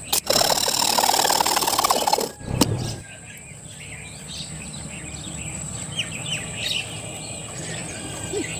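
A loud, harsh noise for about the first two seconds, set off by sharp clicks. Then short bird-like chirps come and go over a steady, high, thin insect-like tone.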